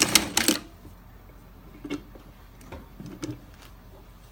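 A short clatter of sharp clicks in the first half second, then a few faint scattered taps, at an industrial sewing machine with a roller foot that has stopped sewing through four layers of heavy vinyl.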